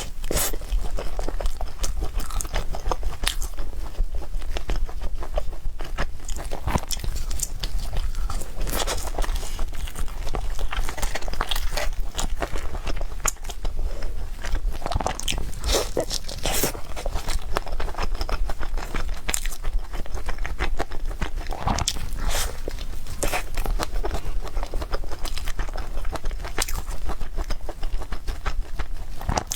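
Close-miked eating: a person biting and chewing food, with many quick, irregular crunchy clicks and wet mouth sounds.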